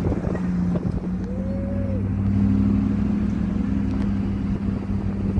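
Pickup truck engine running at a steady low pitch while the truck drives slowly along a dirt trail, heard from inside the cab. The engine gets a little louder in the middle, and a brief wavering tone rises and falls about a second in.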